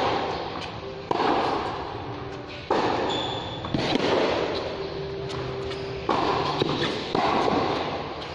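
Tennis balls struck hard with rackets during serve practice, along with balls bouncing on the court. There are about six sharp hits spaced one to two seconds apart, each followed by a long echo in the large metal-roofed hall.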